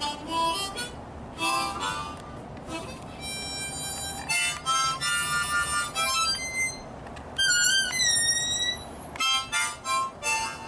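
Blues harp (diatonic harmonica) played solo: a run of short notes and chords, with a few held notes in the middle and a couple of bent, wavering notes past the middle.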